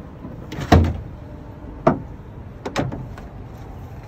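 Hard knocks and thumps from a boat cooler as a striped bass is put into it. The loudest, with a deep thud, comes about a second in; a single knock follows near two seconds and a quick double knock near three.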